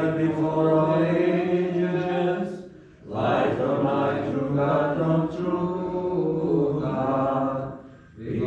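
Orthodox liturgical chant sung in long sustained phrases, breaking off briefly about three seconds in and again near the end.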